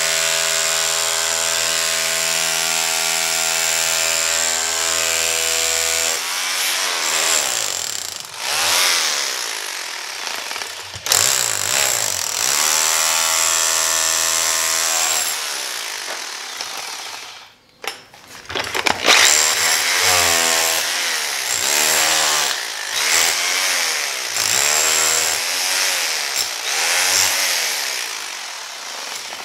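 Corded rotary hammer switched to chisel (hammer-only) mode, its masonry bit pounding into the shell of a bowling ball. It runs in a few long bursts with short stops, and from about two-thirds of the way in the motor's pitch keeps dipping and rising as the bit bites.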